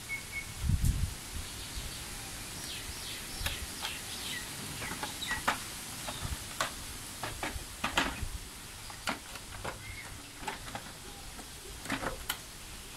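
Scattered clicks and light knocks of a Honda Dio scooter's plastic body panels being handled and fitted back into place, with a dull thump about a second in. Birds chirp briefly in the background.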